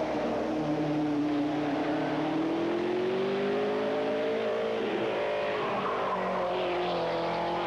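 Race car engine accelerating hard uphill. Its note climbs for about four seconds, breaks off briefly about five seconds in, then climbs again.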